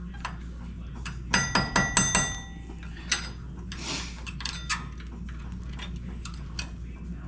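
Old steel-backed brake pads and their retaining clips clinking together as they are handled, with a quick run of bright ringing clinks about a second in, then lighter taps and clicks.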